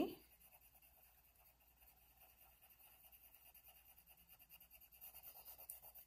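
Coloured pencil shading on paper: faint, quick back-and-forth strokes that grow more distinct in the second half.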